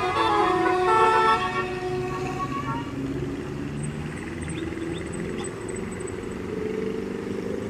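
Bus musical air horn (basuri telolet) playing a quick melody of short changing notes, ending about three seconds in; after that the bus's engine runs on steadily.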